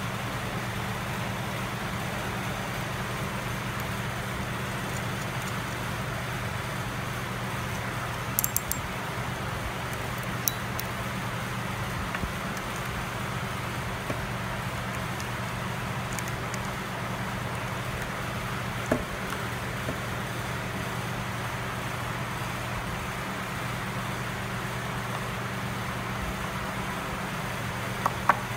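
Steady low machine hum and noise of the workshop, with a few light clicks and taps as small metal hardware and a screwdriver are handled, a small cluster of them about eight seconds in.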